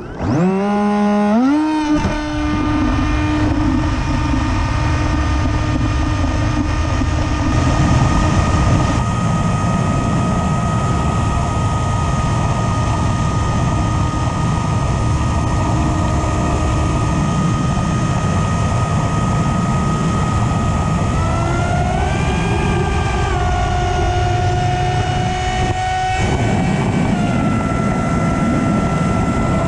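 Brushless electric motor and propeller of an FPV flying wing: a whine that climbs quickly as the motor spools up for launch, then holds steady in flight under heavy wind rush on the onboard microphone. The pitch climbs and shifts with the throttle about two-thirds of the way through.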